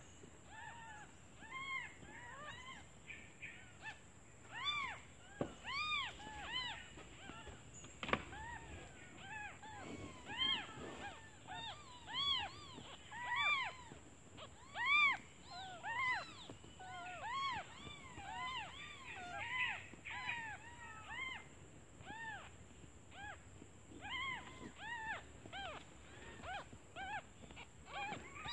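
Several newborn kittens mewing over and over, short high mews that rise and fall in pitch and often overlap one another: hungry kittens calling for their mother.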